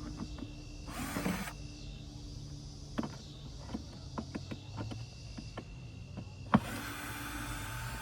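Two hissing puffs from a beekeeper's bellows smoker, about a second in and again near the end, with light clicks and taps from handling the hive between them.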